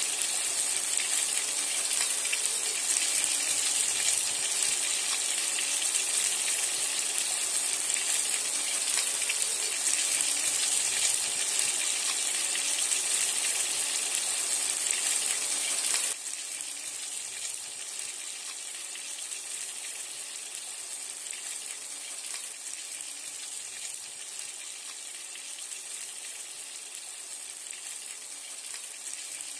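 Carp pieces sizzling as they fry in hot oil in a wok, a steady hiss that drops suddenly to a quieter sizzle about halfway through.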